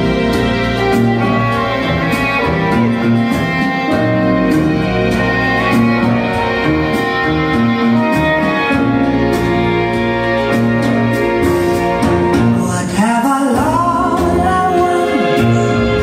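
Cha-cha-cha dance music with a singer and a steady beat, played for Latin competition dancing, with a short break about thirteen seconds in before the song carries on.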